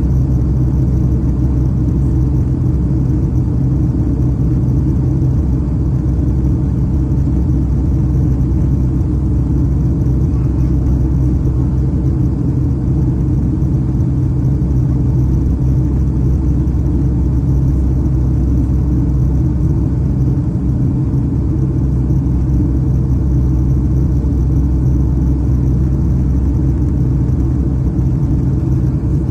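Steady low rumble inside the cabin of a Boeing 757-232, from its Pratt & Whitney PW2037 engines and the airflow, with a constant low drone and no change in pitch.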